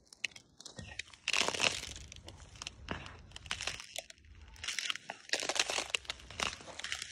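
Rubber boots stepping through thin ice over a frozen muddy puddle, the ice crunching and crackling under each step in a string of short bursts.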